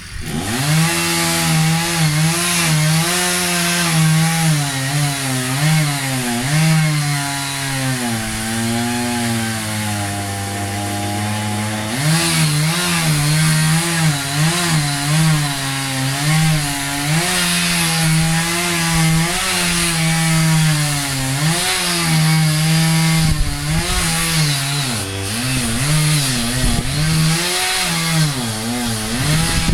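Chainsaw running hard while cutting wood, its engine note wavering up and down. Around ten seconds in the pitch sinks and stays low for a couple of seconds before climbing back up.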